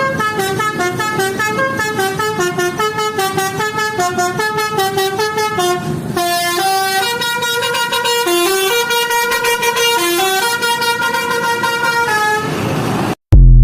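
Basuri musical bus horn ('telolet') playing a quick multi-note melody of stepping tones. The tune changes about halfway through, and the horn stops shortly before a brief, very loud low thump near the end.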